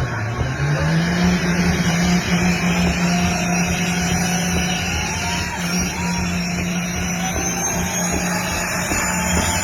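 Caterpillar diesel engine of a compound-turbo drag semi-truck running at high, steady revs after a brief dip in pitch at the start. A faint high whine rises slowly in pitch over the second half.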